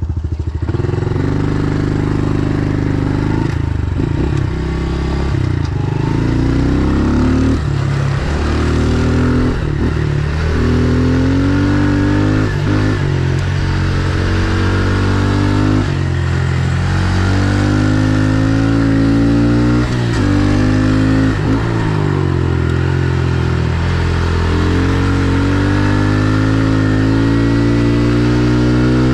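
Honda CRF110 pit bike's small single-cylinder four-stroke engine being ridden hard. It revs up and drops back again and again, the pitch climbing through each burst and falling away at each throttle lift or gear change, about every two seconds.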